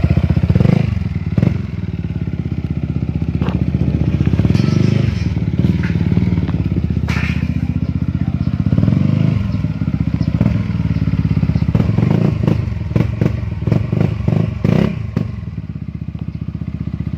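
Yamaha XMAX 300 scooter's single-cylinder engine running through an aftermarket PR2 exhaust: a deep, rapid pulsing note, with the revs rising and falling several times.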